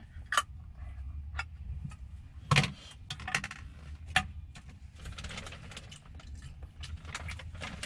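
Sharp clicks and taps of a small plastic food tray and its packaging being handled and set down, the loudest about two and a half seconds in, then a couple of seconds of crinkling and rustling, over a low steady rumble.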